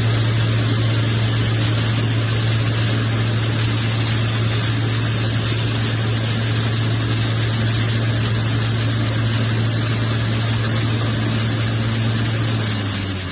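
A lathe running steadily with a low machine hum, a faint high whine and a hiss of cutting noise. Near the end the hum drops in pitch and the sound gets a little quieter.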